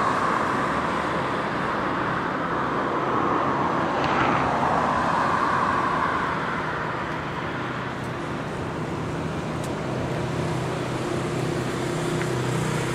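Road traffic: the rush of passing cars on the road, rising and fading, with a steady engine hum that comes in over the last few seconds.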